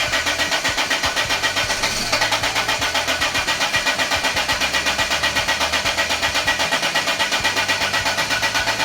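Land Rover diesel engine cranking on the starter motor, turning over in an even rhythm of about seven beats a second without catching: the no-start the owners later trace to the fuel system.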